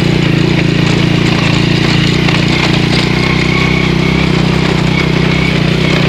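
Old Honda Astrea Grand motorcycle's small single-cylinder four-stroke engine running steadily at an even pitch, pulling in first gear up a steep cobbled track.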